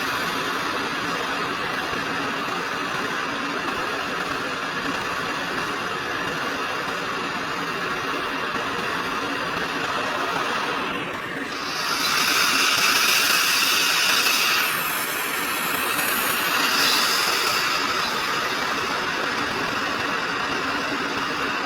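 Hot-air rework station blowing with a steady hiss. The hiss grows louder and brighter about halfway through for a couple of seconds, and again briefly later.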